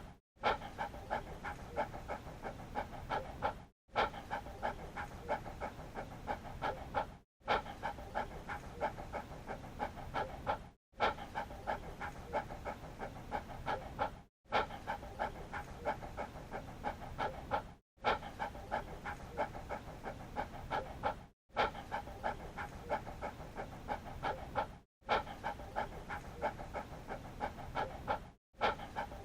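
A dog panting in quick, rapid breaths. The same few-second stretch of panting repeats, with a brief cut to silence about every three and a half seconds.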